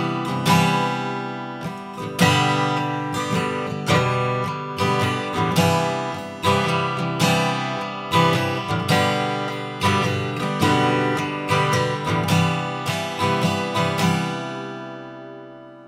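Acoustic guitar playing the instrumental close of a folk song, with chords played in a steady rhythm. About two seconds before the end, a final chord rings out and fades away.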